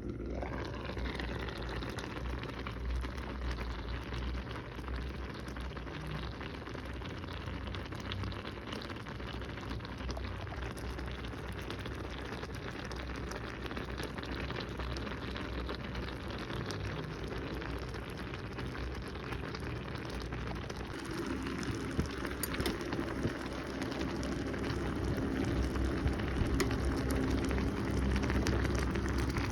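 Food cooking: a steady crackling hiss that grows louder and busier in the last third.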